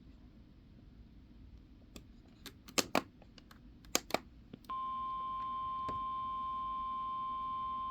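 A few sharp clicks, then, a little past halfway, the steady NOAA Weather Radio warning alert tone comes on and holds. It plays through the speaker of a RunningSnail MD329 weather radio and signals that a new warning is about to be read.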